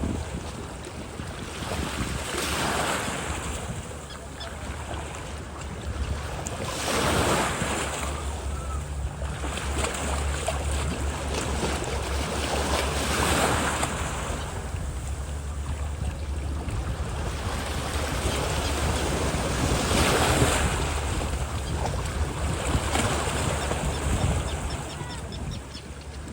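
Ocean surf breaking on the beach in slow swells every few seconds, with wind rumbling on the microphone.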